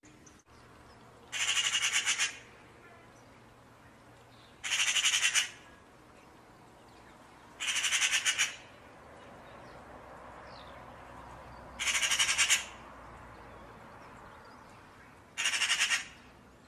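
Crow cawing: five harsh, rasping caws, each just under a second long and a few seconds apart.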